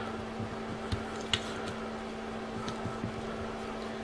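Steady low hum of room tone, with a few faint clicks about a second in as the hard plastic jet-pump housing is handled.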